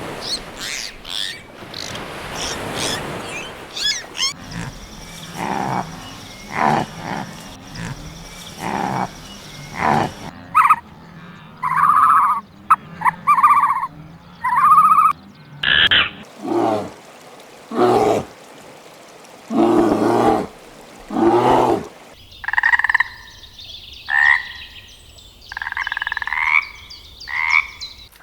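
A series of short animal calls in several separate passages, the later calls coming about a second apart.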